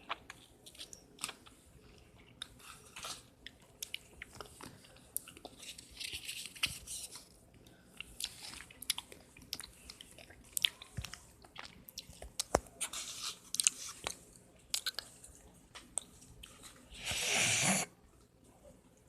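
A person chewing close to the microphone: irregular wet clicks and small crunches. Near the end there is one louder, breathy rush of noise lasting under a second.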